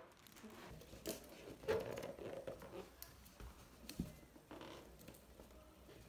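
Faint handling sounds: scattered light clicks and knocks with some rustling, the loudest knock just under two seconds in.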